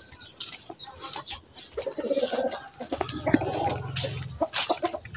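Birds calling, with short high chirps near the start and about three seconds in, and a low steady hum through the second half.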